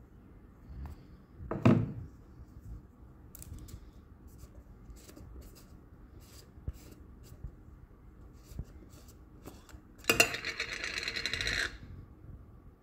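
Screw lid of a hair clay jar being twisted off by hand: a rough grating rasp of about a second and a half near the end. Before it come a thump about two seconds in and light clicks from handling the jar.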